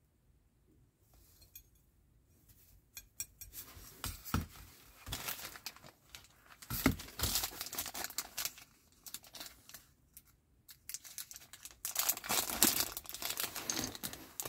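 A small clear plastic parts bag crinkling and being torn open by hand, with irregular crackles. It starts a few seconds in, pauses briefly about two-thirds of the way through, then picks up again.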